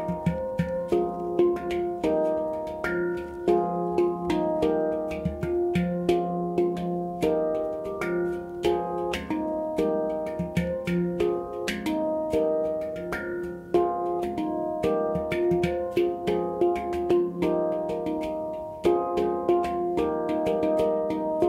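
Handpan tuned to F minor played by hand: a steady, rhythmic stream of struck notes, several a second, each ringing on with bell-like overtones so the notes overlap.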